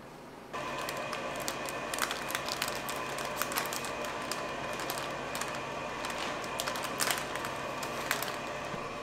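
Clear plastic sheet crinkling and crackling in irregular clicks as gloved hands press and smooth it over thin chocolate discs, over a steady background hum that starts about half a second in.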